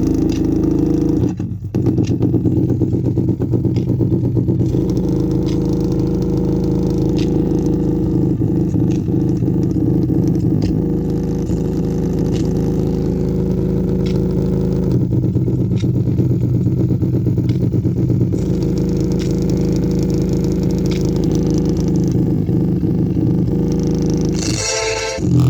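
A woofer playing held bass notes with a buzzing, crackling distortion, the notes changing every few seconds; the woofer sounds bad.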